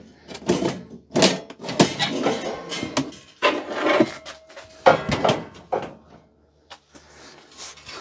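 A metal pipe-frame storage rack being lifted and tipped on end, with repeated clanks, knocks and scrapes of the pipes. A short squeak comes about four seconds in, and the handling dies down to faint knocks near the end.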